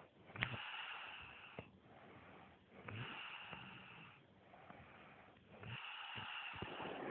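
A man snoring: three long, rough breaths about three seconds apart, each with a faint low buzz under it.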